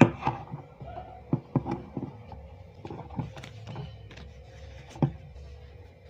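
Handling knocks and taps: a loud knock at the start, a cluster of lighter taps and knocks over the next two seconds or so, and another sharp knock about five seconds in, as objects are picked up and set down on a hard surface.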